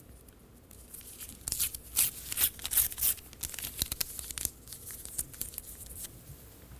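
A piece of paper torn and crinkled by hand in a run of short rips. The loudest rips come between about one and a half and three seconds in, followed by quieter rustling.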